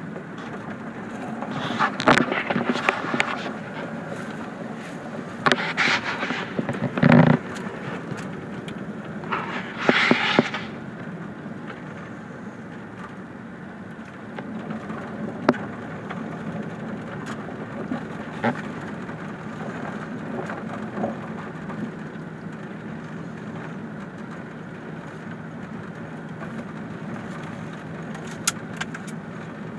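A vehicle driving over a gravel road, heard from inside the cab: a steady engine and tyre rumble broken by loud clatters and knocks, which cluster in the first ten seconds and then come singly.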